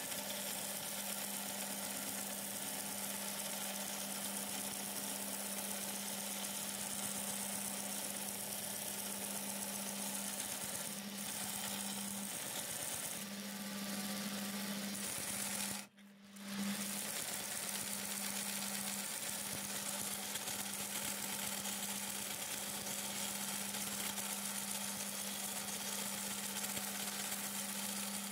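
Belt sander running steadily while the end of a steel toe clamp is ground round against the belt. The sound cuts out briefly a little past halfway.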